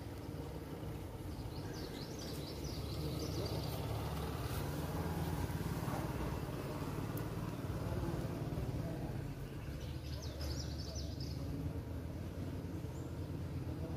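Steady low motor rumble, like an engine running, with a bird chirping briefly twice.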